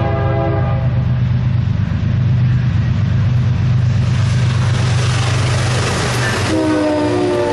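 BNSF freight train diesel locomotives approaching and passing close. A multi-note air horn chord ends about half a second in. The engines then run with a steady low drone while wheel and rail noise builds as the locomotives come level, and the horn sounds again near the end.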